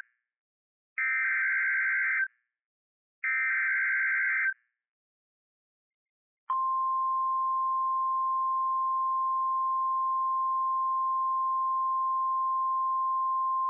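Emergency Alert System SAME header: the tail of one burst, then two more raspy digital data bursts about a second long and a second apart. After a short silence, a long steady single-pitch warning alarm tone starts about six and a half seconds in. Together they mark the start of a broadcast weather warning.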